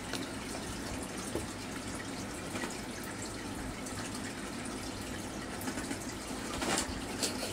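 Steady trickle and splash of water from a running aquarium filter, with a few faint clicks near the end.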